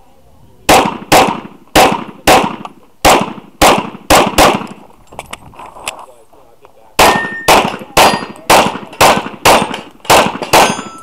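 Glock 34 9mm pistol firing in rapid strings: about eight shots in the first four seconds, a gap of about two seconds, then about eight more at a steady two shots a second.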